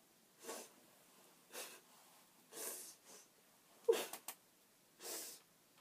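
A person's breathy nasal puffs or snorts through a bra cup held over the nose and mouth. There are about six short ones roughly a second apart, the sharpest about four seconds in.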